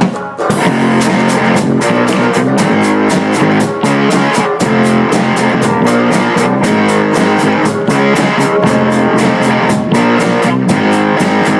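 Background music: a guitar-led instrumental with a steady beat, resuming after a brief break right at the start.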